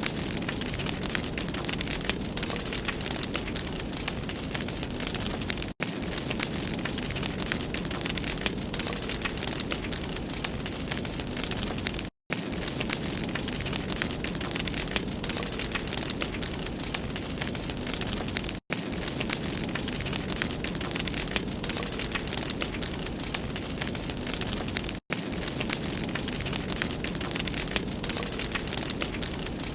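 Wood fire burning in a fireplace: a steady hiss and rumble of flames, with dense fine crackling and pops. The sound cuts out for an instant about every six seconds.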